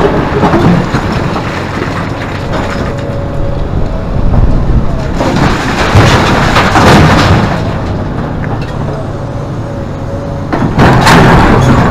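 Hidromek 390 excavator's six-cylinder Isuzu diesel engine running under load with a steady hydraulic whine, and two louder surges of rushing noise about five and eleven seconds in.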